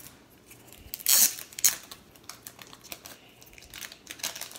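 Trading cards in plastic sleeves and top loaders being handled and shuffled: a short, loud plastic rustle about a second in, light clicks and taps, then another rustle near the end.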